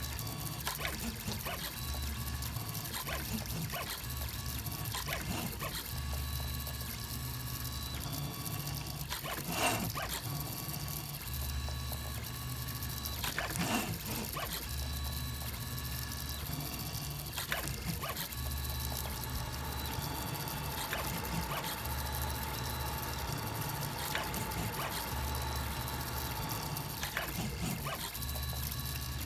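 FDM 3D printer running a print: its stepper motors hum and whine in tones that shift every second or two as the print head and bed move. Two short knocks stand out, about ten and fourteen seconds in.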